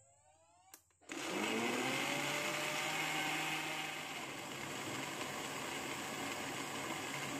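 Electric countertop blender pureeing chunks of overripe pineapple. A click comes just before the motor starts suddenly about a second in; its whine rises in pitch as it spins up, then it runs steadily as the fruit turns to a smooth pulp.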